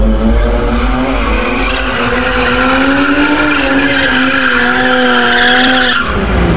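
Car engine held at high revs while the rear tyres spin and squeal in a drift, burning rubber. The engine note wavers up and down and the tyre screech grows, then both cut off abruptly about six seconds in.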